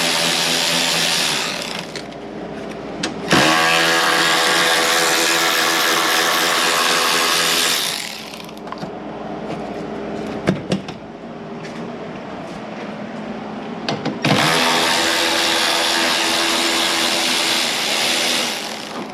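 Handheld power driver spinning out 8 mm bolts in three runs: one ending about a second and a half in, one of about five seconds starting around three seconds in, and one of about four seconds starting near fourteen seconds. There are a few clicks in between.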